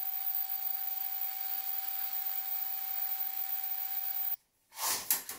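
Handheld vacuum cleaner running steadily with its nozzle held to the end of a conduit, trying to suck a string-tied bag down a tube that a kink is taken to be blocking; a steady hiss with a steady motor whine. It cuts off suddenly about four seconds in, and a few short knocks and rustles come near the end.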